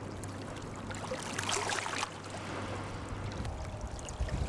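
River water lapping and splashing against rocks at the bank, with a brief louder splash about one and a half seconds in and a low steady hum underneath for the first two seconds.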